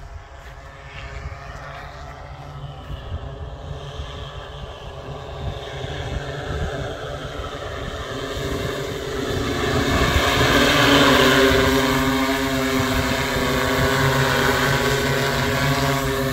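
Multirotor agricultural spraying drone's propellers humming as it flies in low toward the camera, growing steadily louder and loudest from about ten seconds in.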